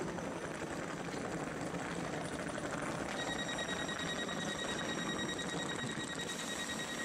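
A high electronic warning beep, a rapid pulsing tone, starts about three seconds in and keeps going over a steady rushing noise.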